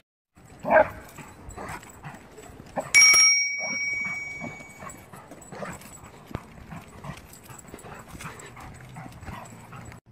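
A large dog gives a short whining call under a second in. About three seconds in there is a sharp hit with a bright ringing tone that fades over about two seconds. After that come regular footfalls on a cleared sidewalk.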